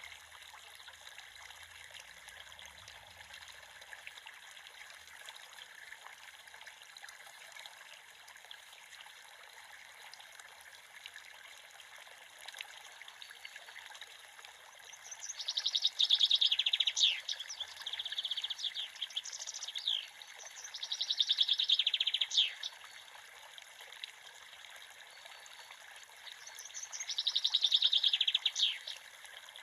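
Creek water running and trickling steadily, with a bird singing loud, rapid trilled phrases, four of them starting about halfway through.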